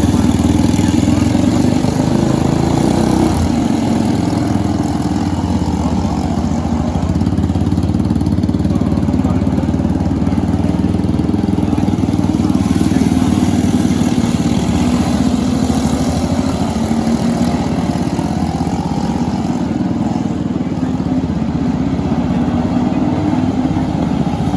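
Racing kart engine running at speed on a flat track, its pitch slowly rising and falling.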